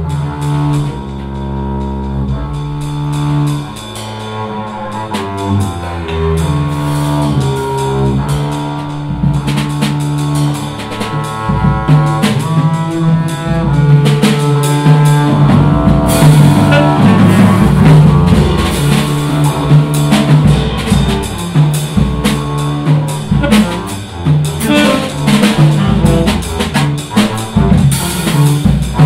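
Live jazz from a trio: double bass with a drum kit. The bass holds long low notes at first, and from about ten seconds in the drums grow busier and louder.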